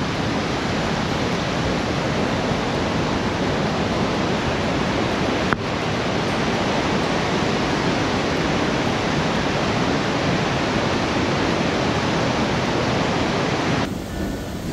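Steady rush of a mountain waterfall, with one brief click about five and a half seconds in. Near the end it cuts off suddenly and gives way to quieter music.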